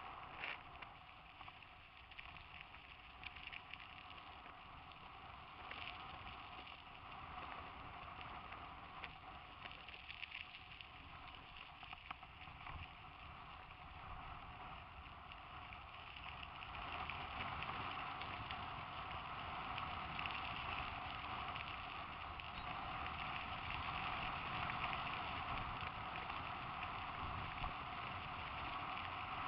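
Mountain bike riding over a dirt and gravel track: a steady crunch of tyres with rattling, louder from about halfway through.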